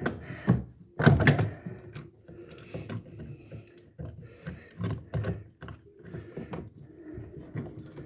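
Irregular clicks and knocks of washing-machine parts being handled and fitted during reassembly. The loudest knock comes about a second in.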